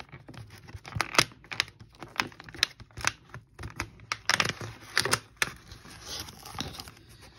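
Fingernails picking at and tearing open a perforated cardboard advent calendar door: a quick, irregular run of sharp clicks, scratches and paper tearing and rustling, loudest and busiest a little past halfway through.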